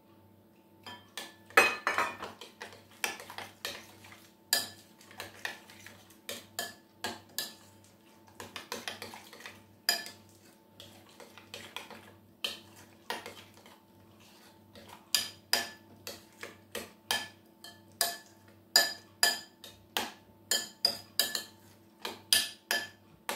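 Metal spoon clinking and scraping against a glass mixing bowl as a thick yogurt, cucumber and mint dip is stirred, in quick repeated knocks about two a second.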